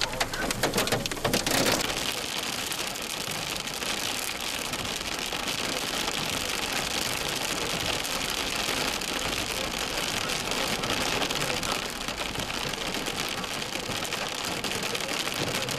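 Heavy rain falling, a steady dense hiss of drops, with a sharper, louder patter in the first two seconds.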